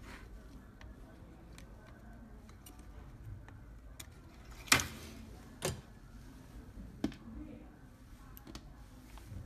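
Sharp clicks and light taps from handling a circuit board, tools and parts while a trimmer potentiometer is desoldered, over a faint low hum. The loudest click comes about halfway through, with smaller ones about one and two seconds later.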